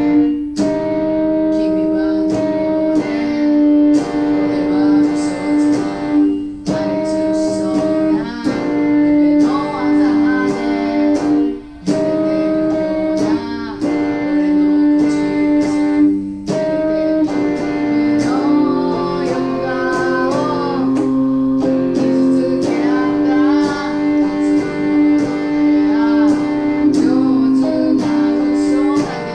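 A woman singing to strummed guitar chords.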